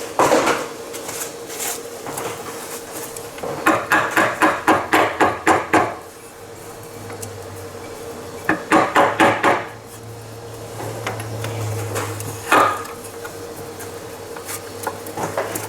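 Hand-tool work on metal parts: two runs of quick, evenly spaced metallic clicks, about four a second, with a few single knocks and clatters in between.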